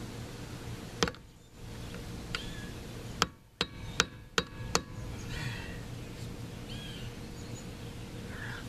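Seven sharp hammer strikes on metal at the front wheel hub: single taps about one and two seconds in, then five quicker ones about every 0.4 s, a couple ringing briefly. Birds chirp in the background.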